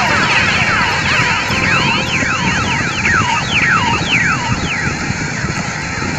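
Cartoon soundtrack layered over itself: a fast run of overlapping falling whistle-like sweeps, each dropping from high to lower pitch, over a steady hiss. The sweeps die away about four and a half seconds in.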